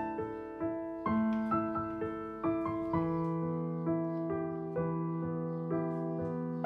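Background piano music: a slow melody at about two notes a second over held lower notes.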